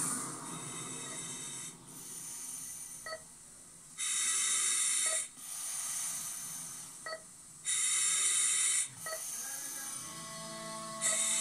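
A hospital-drama soundtrack played through a television: a patient breathing heavily through an oxygen mask, with long hissing breaths in and out, and a short beep from a medical monitor about every two seconds. Soft music tones come in near the end.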